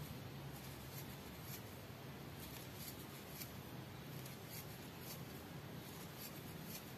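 Faint soft rubbing with scattered light ticks from a 2.0 mm crochet hook drawing yarn through single crochet stitches, over a low steady hum.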